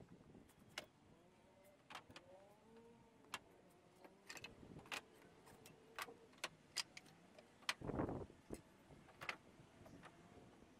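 Pallet wood offcuts knocking and clattering as they are handled and laid on a wooden table: a string of sharp, separate wooden knocks, with a longer scraping rustle of wood sliding about eight seconds in.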